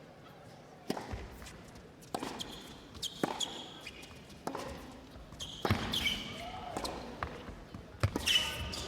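Tennis rally: ball struck back and forth by rackets about once a second, with shoes squeaking on the hard court after some of the shots.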